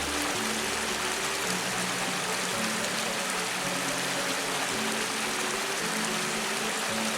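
Steady rushing of flowing stream water, with soft background music playing sustained low notes that change every second or so.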